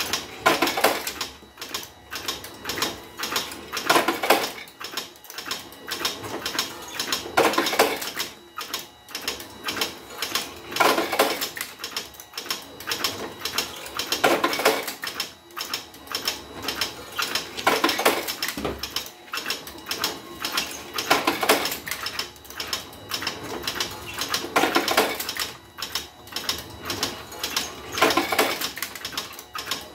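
Homemade automatic revolver-cylinder cigarette-making machine running, filling filter cigarettes with moist kretek tobacco: a fast, busy clicking of its mechanism, with a louder clattering burst about every three and a half seconds in a regular cycle.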